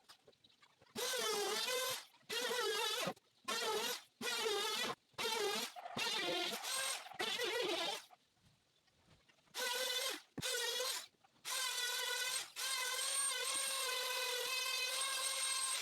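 Electric power tool motor whining in a series of short on-off runs, its pitch wavering, then running steadily for the last few seconds.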